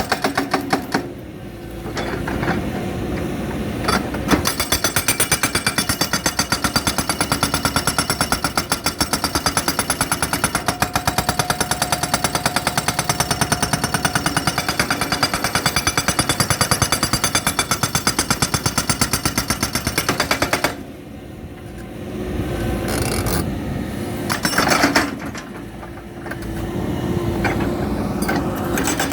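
Hydraulic rock breaker (Unicorn UN100B) on an excavator hammering, a rapid, steady stream of metal-on-rock blows. The breaker stops about two-thirds of the way in, leaving the excavator's engine and hydraulics rising and falling, then hammers again in shorter bursts near the end.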